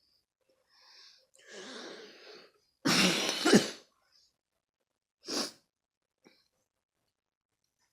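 A person coughing while forcing down strong cough mints: a hard, loud cough about three seconds in, then a shorter cough about two seconds later.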